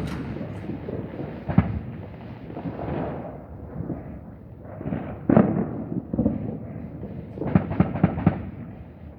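A series of sharp bangs over a steady background rumble: one about a second and a half in, a louder one around the middle, then four in quick succession near the end.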